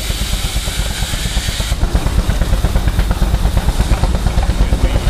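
Antique engines running, with a rapid low thudding of about five beats a second. A steady hiss, likely steam, cuts off sharply about two seconds in.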